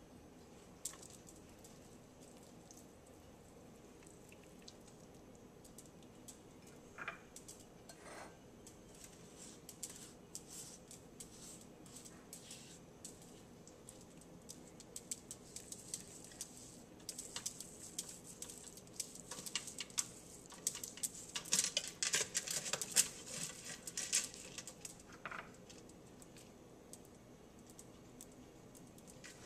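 Scattered clicks and crackling of hands handling a raw, spice-rubbed pork roast and setting it down into a slow cooker's pot. The sounds are busiest about two-thirds of the way through.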